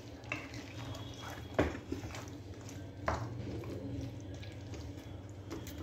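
A spoon knocking and scraping against a cooking pot a few times as chicken, potatoes and masala are stirred while they fry, over a faint low hum.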